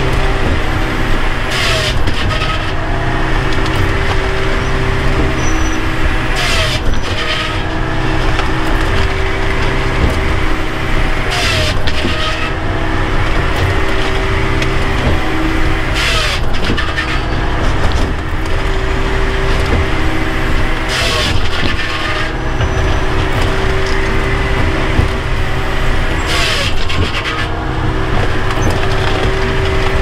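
Bells 4000 firewood processor running under load, heard from inside its cab: a steady engine and hydraulic drone, with wood being sawn and split in a short burst about every five seconds as each round is processed.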